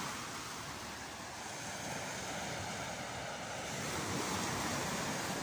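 Small waves breaking on a sandy beach: a steady wash of surf.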